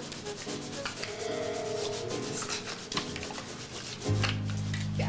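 A stiff brush scrubbing a stain out of a carpet in quick, repeated back-and-forth strokes.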